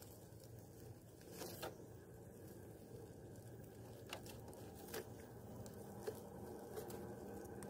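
1/10-scale RC4WD Marlin crawler pushing slowly through long grass and leaf litter: faint rustling and a handful of small, sharp crackles of twigs and dry leaves under the tyres, the loudest pair about one and a half seconds in, over a faint steady hum from the crawler's drivetrain.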